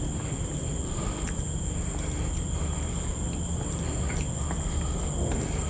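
Crickets trilling steadily at night, a continuous high-pitched drone, over a low steady rumble.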